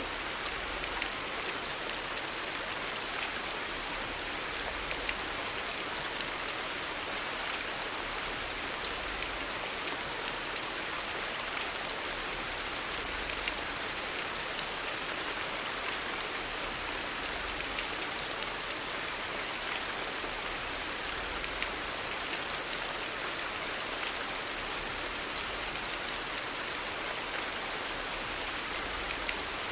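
Steady rain falling on hard surfaces: an even hiss dotted with many small drop taps.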